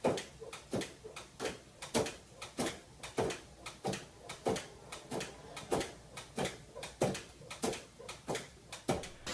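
A cat batting at a pet-door flap, knocking it against its frame over and over in sharp knocks, about two or three a second.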